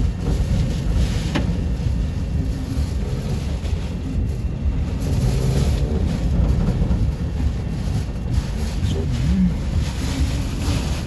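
Hurricane eyewall winds buffeting the microphone: a loud, unbroken low rumble of wind noise.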